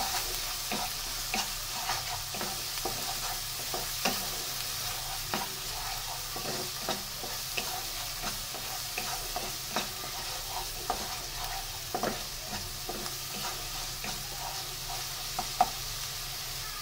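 Spice paste of ground onion, green chilli and mustard frying in hot oil, sizzling steadily as it is fried down, while a wooden spatula stirs it round a non-stick wok with irregular scrapes and taps against the pan.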